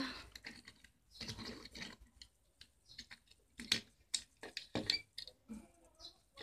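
Small toy car being handled on a wooden surface: irregular clicks and taps as it is picked up, set down and turned over, with a few louder knocks near the middle and end.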